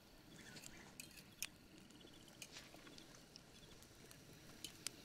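Near silence: faint background hiss broken by a few small sharp clicks.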